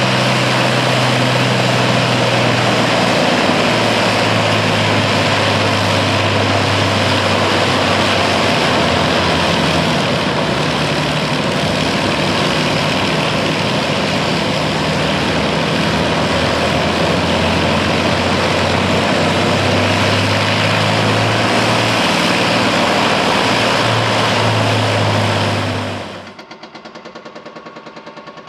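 The Allison V-1710 V12 of a restored Ilyushin IL-2 Sturmovik, an engine taken from a P-38, running on the ground at a steady low power setting. Its note shifts slightly a few times. About 26 seconds in it gives way suddenly to a quieter, fast, even rattle.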